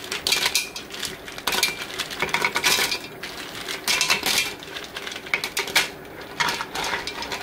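Live green mussels dropped by the handful into a stainless steel pot, their shells clattering against each other and the metal in irregular clusters, with a wooden spoon pushing them around.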